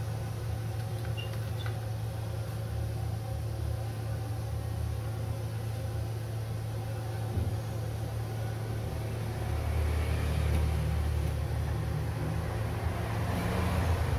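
Steady low machine hum, growing louder with a faint hiss from about nine and a half seconds in.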